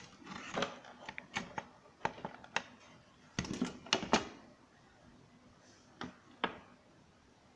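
Irregular clicks and light knocks from handling the opened mixer grinder's parts and wiring, thick for the first four seconds, then two more clicks about six seconds in.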